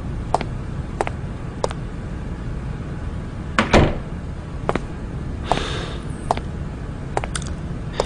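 Footsteps on a hard floor, then a wooden door shutting with a thud a little under four seconds in, followed by a few more footsteps.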